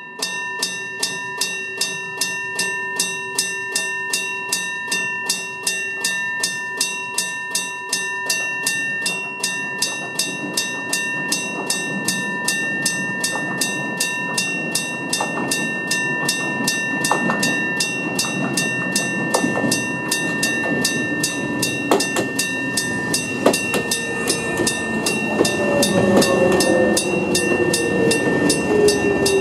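Japanese level-crossing electric bells start suddenly, ringing with a steady, even series of rapid strikes. From about halfway, a Jomo Electric Railway 700-series train approaches under the bells. Its rumble grows, with sharp clicks of wheels over rail joints, and near the end a falling whine.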